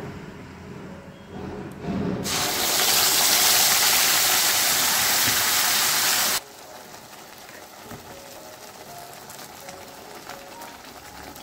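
Wet spice paste of ginger, green chilli, onion, garlic and yogurt hitting hot mustard oil with a fried whole-spice tempering in a kadai. A loud hissing sizzle starts about two seconds in and cuts off suddenly some four seconds later, then a quieter steady sizzle follows as more paste is spooned in.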